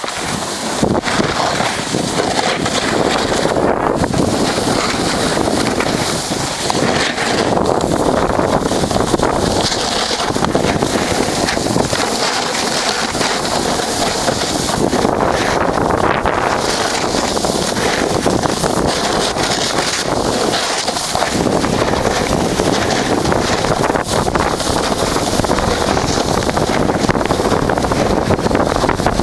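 Strong wind rushing over a handheld camera's microphone while riding at speed down a ski slope, with the hiss of snow under the rider mixed in. The rush is loud and unbroken, swelling and easing slightly with speed.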